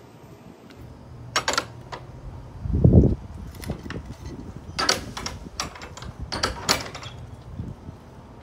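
Sharp clicks and scrapes from a wooden fence gate being opened and walked through, with one low thump about three seconds in.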